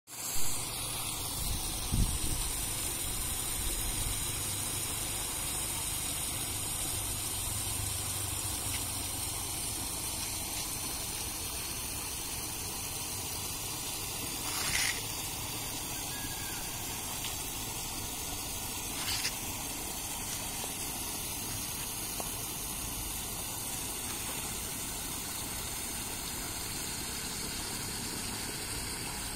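Water rushing steadily over an overflowing check dam. There is a thump about two seconds in, and two short louder hisses about halfway through.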